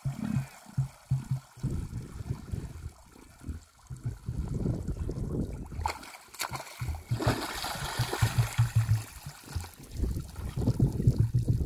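Emus wallowing in a shallow muddy puddle, the water sloshing, splashing and trickling around their bodies, with repeated low pulsing sounds throughout and a few sharp splashes about six seconds in.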